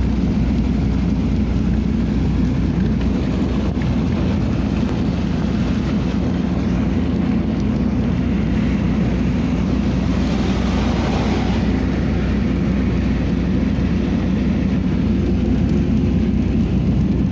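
Steady rumble of a car driving in heavy rain, heard from inside the cabin: tyre and road noise on the wet road mixed with rain on the car body and windows. A louder hiss rises for a couple of seconds about ten seconds in.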